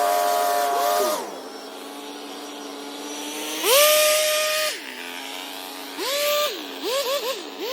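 Small engine of a handheld lawn tool dropping from high revs to idle about a second in. It is then throttled up and held for about a second, revved again briefly, and blipped several times in quick succession near the end.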